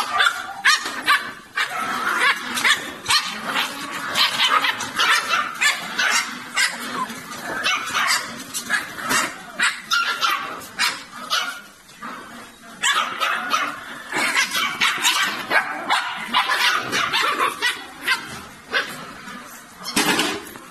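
Several puppies yipping and barking in quick, overlapping high-pitched calls, squabbling as they crowd around their food tray.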